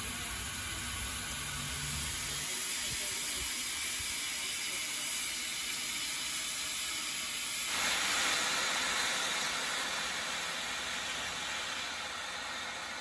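Steam locomotive Repton, a Southern Railway Schools class 4-4-0, hissing steam steadily over a low rumble that stops a couple of seconds in. About eight seconds in, the hiss grows louder and brighter.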